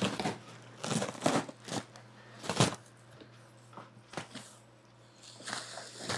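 Plastic air-pillow packing and cardboard box flaps rustling and crinkling in irregular bursts as the packing is pulled out of a cardboard box.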